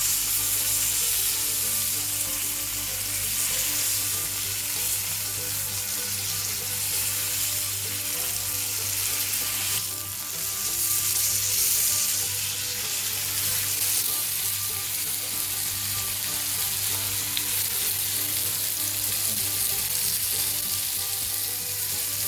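Tomahawk ribeye steak sizzling steadily as it sears in a hot pan.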